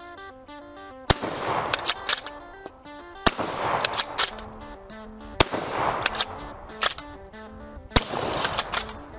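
Bolt-action shotgun firing four shots, about two seconds apart. After each shot comes a quick run of metallic clicks as the bolt is worked to eject the spent shell and chamber the next. Background music plays under it.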